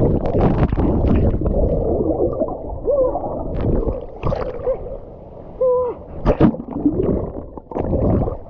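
Water rushing and splashing, then muffled underwater gurgling with short warbling bubble sounds and a few splashes: a rider going down a water slide and under the water of the pool.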